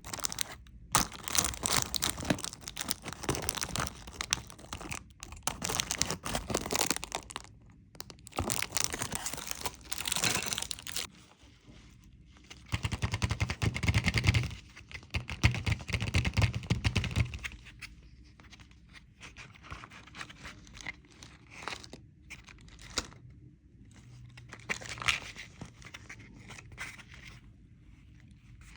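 Candy wrappers being crinkled and torn open by hand: a dense crackle for the first ten seconds or so, then lighter, sparser crinkling.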